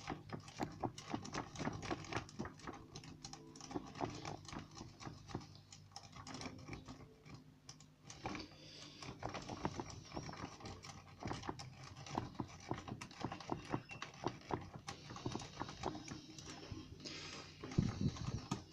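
Rapid, irregular metallic clicking of a rake worked in and out of a Union pin tumbler cylinder lock under tension, its pins chattering against the serrated rake. There is a louder handling rustle near the end.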